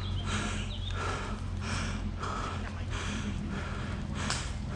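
A person panting hard close to the microphone, quick rhythmic breaths in and out about every two-thirds of a second, over a steady low rumble. A sharp click near the end.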